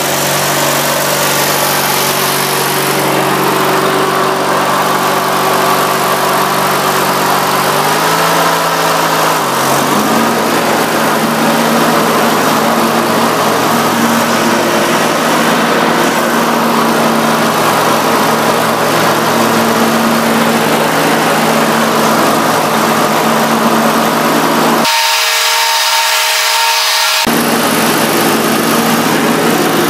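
Riding lawn mower engine running steadily while mowing, its note dipping and shifting about eight seconds in.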